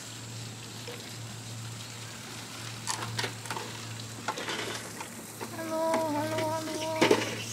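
Steady crackling hiss of outdoor background with a low hum and scattered light clicks, and a held, slightly wavering voice-like call for about a second and a half near the end.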